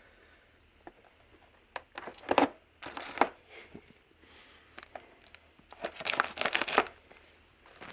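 Packing material being handled and pulled apart, crinkling and tearing in several short bursts.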